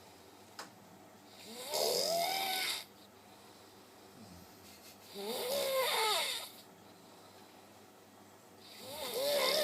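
A person snoring in a slow, even rhythm: three long snores about three and a half seconds apart, each wavering up and down in pitch.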